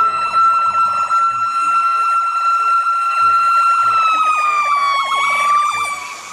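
Fire engine siren sounding one steady high tone with strong overtones, its pitch sagging lower about four to five seconds in and then holding, as the loudness eases near the end.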